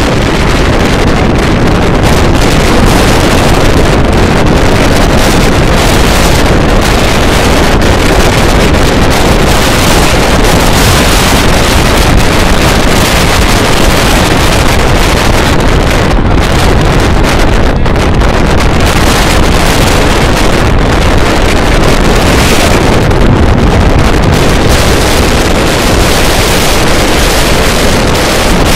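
Strong storm wind blowing across the microphone: loud, constant wind noise that covers everything else.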